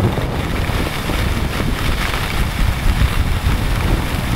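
Wind buffeting the microphone of a camera carried by a skier moving fast downhill, a steady rushing rumble, with the hiss of skis running over groomed snow.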